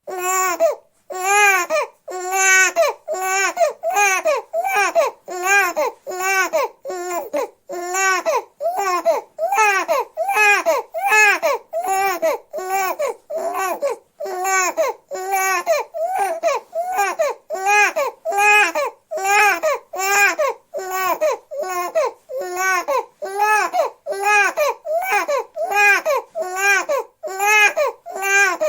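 Newborn baby crying in short, repeated wails, each rising and then falling in pitch, about three every two seconds without letup.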